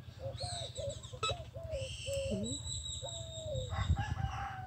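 A rooster crowing in a string of stepped calls. A steady high beep from the metal detector sounds for about a second and a half past the middle.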